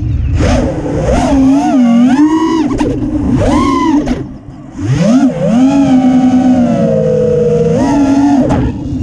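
FPV freestyle quadcopter's four brushless motors and 5-inch propellers whining, the pitch swooping up and down sharply with the throttle. About four seconds in the whine drops away for half a second during a roll and then surges back up, with wind rumble on the on-board microphone.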